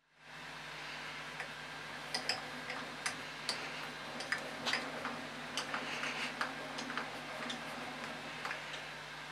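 Table handwheel and leadscrew of a Warco VMC milling machine turned by hand, giving irregular sharp ticks and clicks a few times a second. A steady low hum runs underneath.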